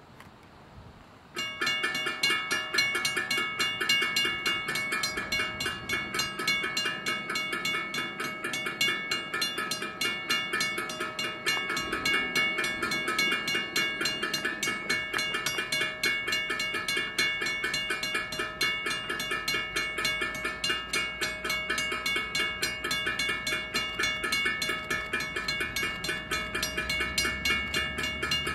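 Railroad grade-crossing bell ringing in rapid, even strokes at a steady level, its ring made of several fixed tones. A low rumble comes in near the end as the train approaches.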